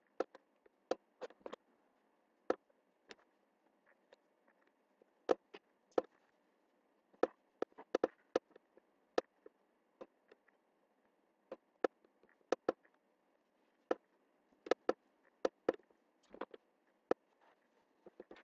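Computer mouse button clicking at irregular intervals, some clicks in quick pairs, over a faint steady hiss.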